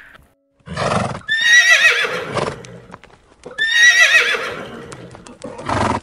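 Horse neighing twice, each whinny a high, quavering call that falls in pitch over about a second and a half. Short noisy blows come just before the first whinny and near the end.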